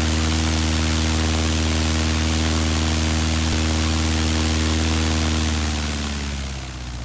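Citabria's Lycoming O-320 four-cylinder aircraft engine, run without its cowling, turning the propeller at a steady speed. About five and a half seconds in it winds down as it is shut off, its pitch sliding lower and the sound fading.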